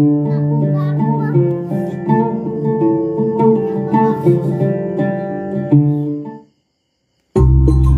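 Guitar music played from an MP3 player module through a small class-D amplifier during a sound test. The music stops abruptly about six and a half seconds in, and after about a second of silence a different piece with heavy bass starts.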